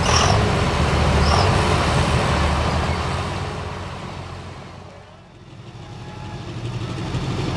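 Diesel pulling-truck engine running loud and heavy, fading away about five seconds in, then another diesel pickup's engine fading back in at a steady, lower run.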